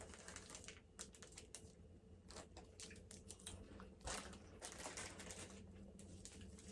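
Faint, scattered clicks and light crackles of a snack's plastic wrapper being handled and opened.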